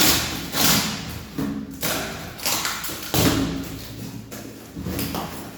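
Cardboard boxes of light fittings being handled and opened: a string of thumps and rustling scrapes, roughly one every half second to second.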